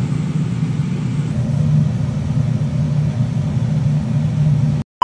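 Steady low rumble of a running vehicle, cutting off suddenly near the end.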